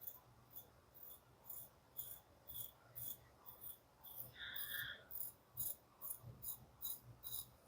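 Harnds folding knife's Sandvik 14C28N steel edge shaving arm hair: faint, quick scraping strokes about two a second, a sign the blade is still shaving-sharp after cutting jute rope. A brief faint high tone comes about halfway through.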